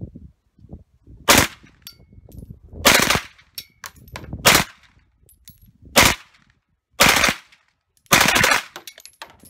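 Submachine gun fired on full auto in six short bursts of a few rounds each, the last burst the longest, with faint tinkles of brass between them.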